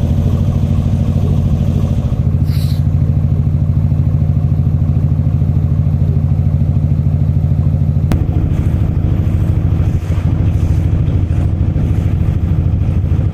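Boat engine running steadily with a fast, even throb. A short click comes about eight seconds in, after which the engine note shifts slightly.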